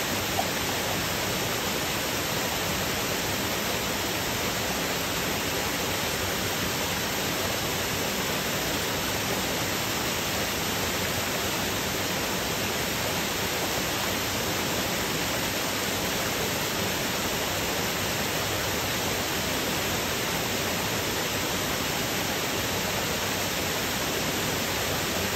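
B. Reynolds Falls, a waterfall spilling over a rock ledge, rushing steadily: an even, unchanging roar of falling water.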